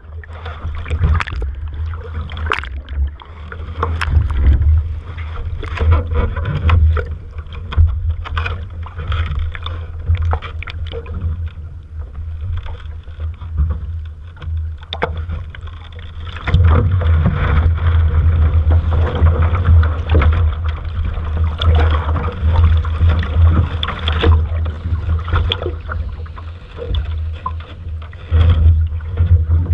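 Wind buffeting the microphone in a heavy, uneven rumble, over water splashing and slapping around a sailing boat, with louder gusts and splashing from about halfway through.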